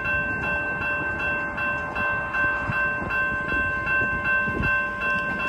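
Railroad crossing-signal bell ringing steadily at about three strokes a second while the gates rise, the sign that the crossing is clearing after the train has passed.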